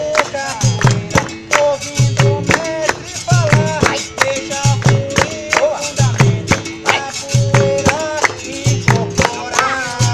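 Live capoeira roda music: a berimbau holding a twanging note with repeated pitch bends, over a steady drum beat and pandeiro jingles, with hand clapping.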